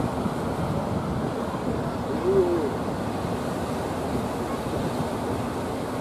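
Surf breaking at a river mouth, a steady rushing of waves and wind on the microphone. About two seconds in, a brief voice-like call rises and falls in pitch over it.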